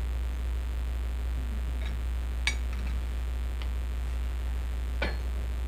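A few sharp metallic clinks and taps, the loudest about two and a half and five seconds in, from hand work at a lathe chuck while a workpiece is trued up against a dial indicator. A steady low hum sits underneath.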